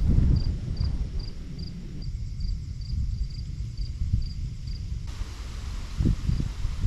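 A cricket chirping steadily, about two and a half short high chirps a second, over a low rumble of wind on the microphone; the chirping stops about five seconds in.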